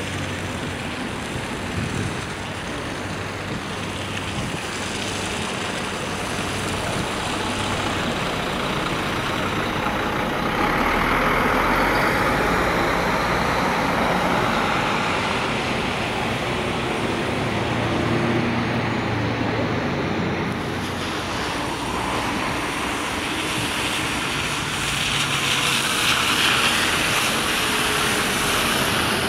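Heavy vehicle passing with steady traffic noise, growing louder about ten seconds in and again near the end.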